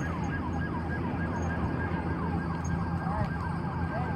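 Siren sounding in quick falling sweeps, several a second, over a steady low engine rumble.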